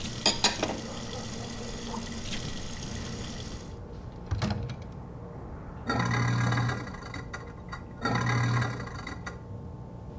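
Kitchen sink faucet running with a steady hiss while ceramic bowls and plates clink together near the start. A knock follows, then two short bursts, each under a second, of a low hum with hiss.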